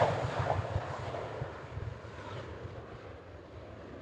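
Jet airliner's engine noise dying away after a close pass, a fading rush that keeps getting quieter, with wind buffeting the microphone underneath.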